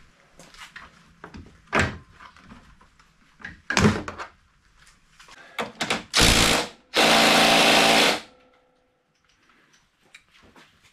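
A few scattered clicks and knocks of parts being handled, then a cordless power driver running on the bumper bolts in two bursts: a short one about six seconds in, and a steady run of about a second right after it.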